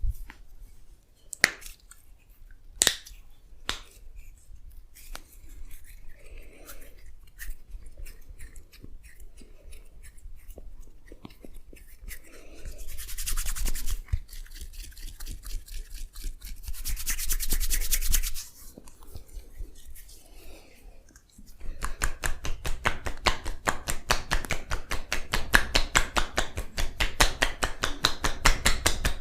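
Hands massaging: a few sharp slaps and clicks, then rubbing and hissing friction strokes that swell twice, and from about two-thirds of the way in a fast, even run of rhythmic striking strokes, several a second.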